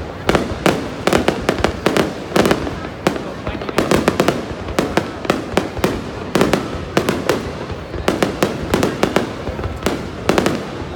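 Aerial fireworks display: a rapid, irregular string of bangs and crackles from shells bursting overhead, several a second and often in quick clusters, without a break.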